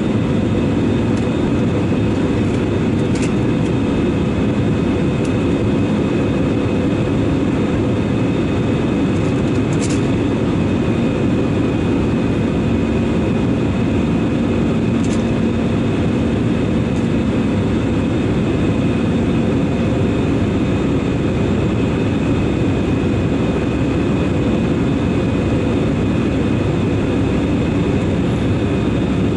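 Jet airliner cabin noise during the climb after takeoff: the steady roar of the engines and the airflow, with a steady hum and a faint high whine running through it.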